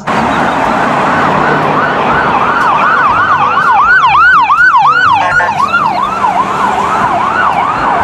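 Ambulance siren in a fast yelp, its pitch sweeping up and down about two to three times a second, with a short break in the pattern about five seconds in, over the noise of passing road traffic.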